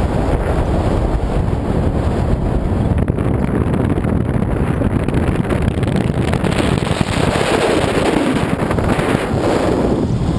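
Rushing air buffeting the microphone of a paraglider pilot's body-mounted camera in flight: steady, loud wind noise.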